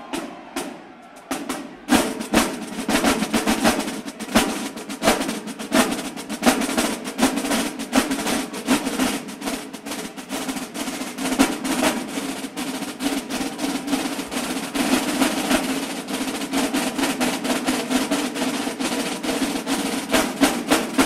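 Marching band drumline playing a cadence on snare drums, tenor drums and bass drums: quieter for about the first two seconds, then the full line comes in loudly with fast, dense strokes.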